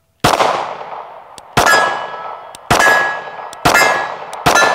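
Glock 48 9mm pistol fired five times, about one shot a second, each shot followed by the ringing of steel plate targets being hit.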